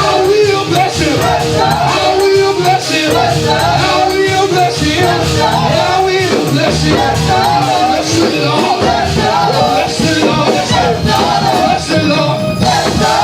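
Live gospel praise-and-worship music: a band with drums playing under singing voices.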